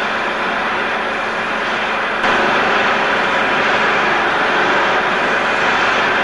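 Steam locomotive working, heard as a steady loud rushing noise without a clear beat, with an abrupt jump in level about two seconds in.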